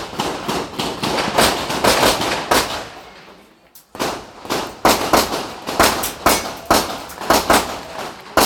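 Handgun shots fired in rapid strings, several a second, with a lull of about a second near the middle before the next string.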